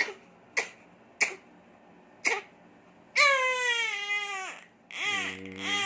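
An infant coughs four times in short sharp bursts, then breaks into a long high cry that falls in pitch, and starts crying again near the end. The cough comes when the baby's nose gets blocked.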